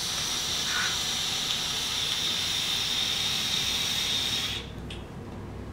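Long drag on a Hobo rebuildable dripping atomizer: the coil sizzling as it vaporizes e-liquid while air is drawn through the airflow holes, a steady hiss lasting about four and a half seconds and then stopping. The wick is still wet, not yet giving a dry hit.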